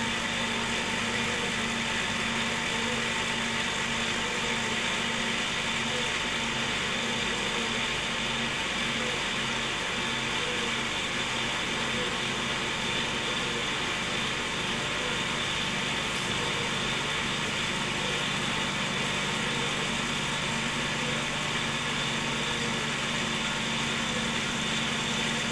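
Cotton candy machine's DC motor spinning the spinner head, running steadily with a constant hum and whine.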